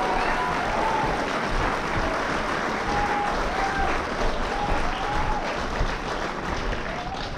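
Audience applauding, with scattered cheers and whoops, tailing off near the end.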